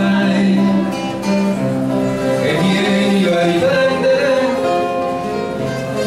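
Small acoustic ensemble playing live: nylon-string classical guitars plucked and strummed under a melody of long held notes.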